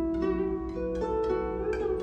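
Guzheng (Chinese zither) playing a slow melody: about five plucked notes ring on and overlap, and one note is bent upward near the end.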